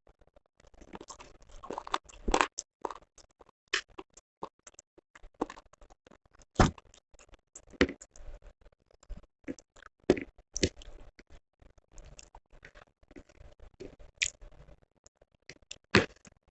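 Close-miked eating sounds: chewing with irregular sharp clicks and crunches, a few louder ones standing out several seconds apart.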